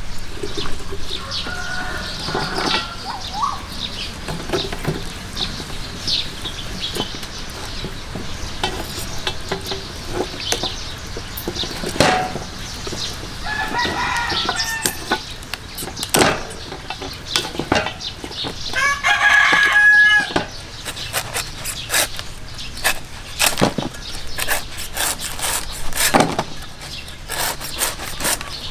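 A rooster crowing, the longest and loudest crow about two thirds of the way in, with shorter calls near the start and in the middle. Scattered sharp knocks and clicks run underneath.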